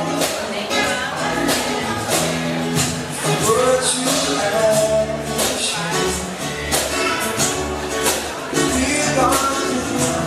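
Background music with a steady beat: a tambourine-like jingle over bass and melody, with a sung or held melodic line.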